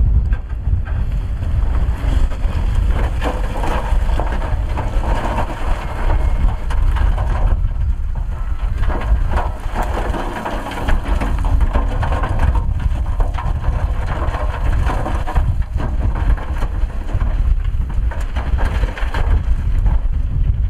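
Dump truck tipping its bed: rock and soil slide and tumble out over the tailgate with a dense, rough crunching and clattering. Under it runs a steady low rumble of the truck's engine.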